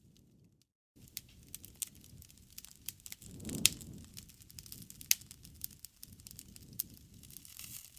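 Wood fire crackling and popping: many sharp snaps over a low rumble of flames, with a loud pop about three and a half seconds in. The sound cuts out completely for a moment just under a second in.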